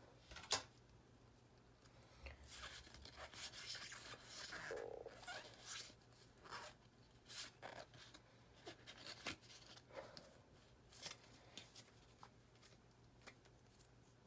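Faint rustling and light clicks of a stack of trading cards being handled and sorted by hand, with a longer stretch of rustling about three to six seconds in.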